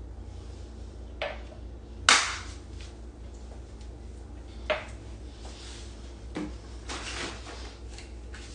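A few sharp knocks and clinks of objects handled on a hard surface, the loudest about two seconds in, with softer scuffs and rustles later.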